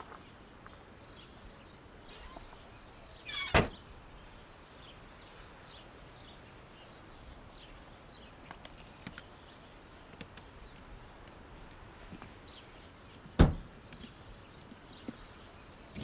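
A car's rear door and boot lid being slammed shut: two heavy thunks about ten seconds apart, the second the louder.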